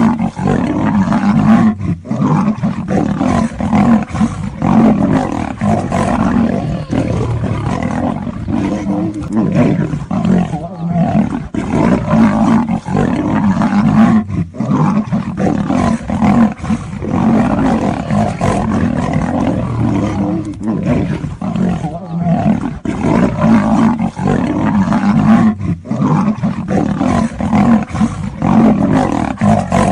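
A lion and a tiger fighting, snarling and roaring without a break.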